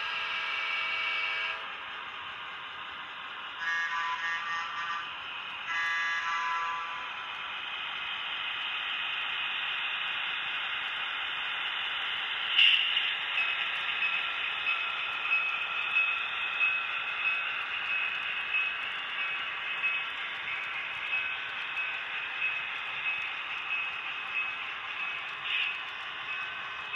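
HO scale model train: its horn sounds three times, one long blast and two shorter ones, then the train runs past with a steady high whine and a regular clicking a little more than once a second, with one sharper click partway through.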